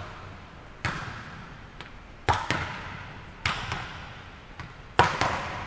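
Volleyballs being struck and landing on a hardwood court: four sharp smacks about a second or so apart, each echoing around a large gym.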